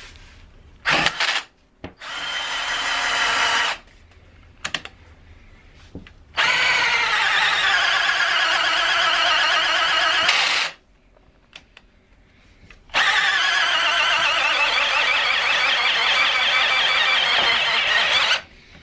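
Power drill-driver threading a left-hand-threaded automatic fastener into the core bore of an aluminium extrusion. The motor whines in several runs: a short burst about a second in, a run that climbs in pitch, then two long steady runs of about four and five seconds.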